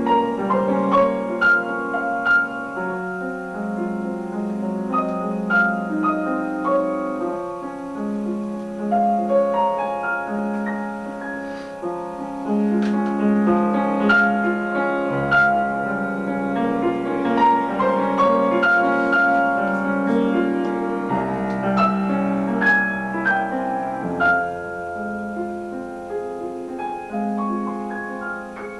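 Piano playing a flowing piece of many overlapping notes and chords.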